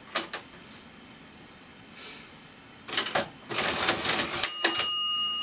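Antique brass National Cash Register Model 542 ringing up an entry: two sharp key clicks at the start, then a rattling mechanical whirr as the side crank is turned about three seconds in. The register's bell rings near the end and holds a steady tone.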